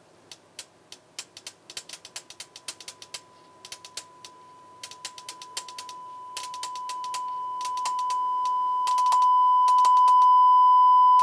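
Relays in a Sound Skulptor MC624 monitor controller clicking in quick runs as its volume is stepped up. Meanwhile a steady test tone from a Yamaha monitor speaker rises from barely audible to loud.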